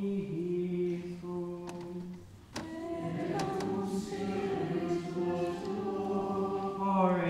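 Voices singing Latin plainchant in unison, long notes held and moving slowly. The singing breaks off briefly about two and a half seconds in, with a sharp click.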